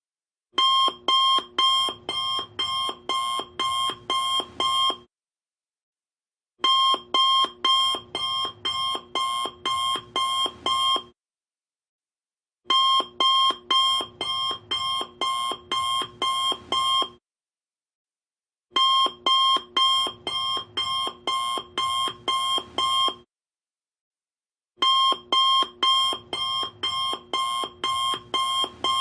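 Alarm clock ringing in repeated groups of about ten quick, evenly spaced pitched beeps, about two and a half a second. Each group lasts about four and a half seconds and is followed by a gap of about a second and a half.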